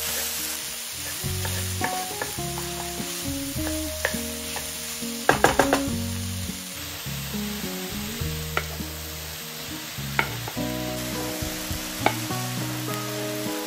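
Food sizzling in a frying pan as it is stirred, with a spoon or spatula clicking against the pan now and then and a quick cluster of loud knocks about five seconds in. Background music with sustained notes plays throughout.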